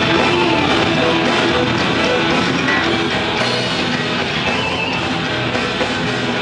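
Metal band playing live through a PA: distorted electric guitars, bass and drums in a heavy metal riff during a sound check.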